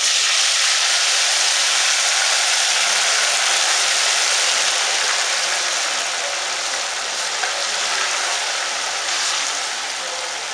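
Food dropped into hot cooking oil in an aluminium pot, setting off a loud, steady sizzle. It starts suddenly and slowly eases off.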